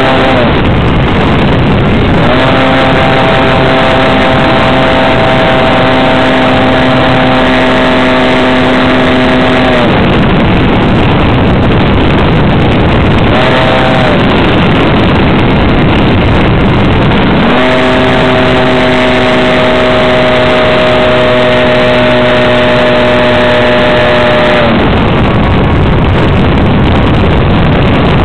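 Engine of a radio-controlled scale Sopwith Camel model in flight, heard loud and close from the onboard camera with wind rushing over the microphone. Its steady tone rises a couple of seconds in and again around the middle, and drops back into a rougher, noisier sound about ten seconds in and near the end, as the throttle and the flight attitude change.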